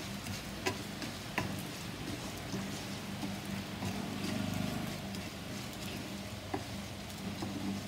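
Raw white rice frying in a little oil in a frying pan, a faint steady crackle as it browns, with a wooden spoon stirring and scraping it and a few sharp taps on the pan. A low steady hum runs underneath.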